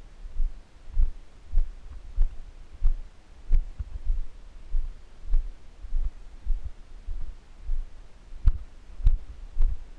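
A steady rhythm of low, dull thuds, about one and a half a second, with a few sharper clicks near the end.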